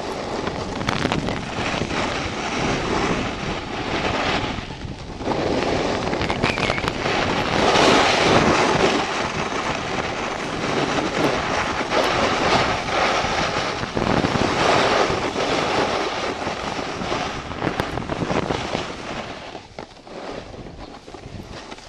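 A snowboard sliding and carving over packed snow, a steady scraping hiss that rises and falls with the turns, mixed with wind rushing over the microphone. It quiets near the end as the board slows to a stop.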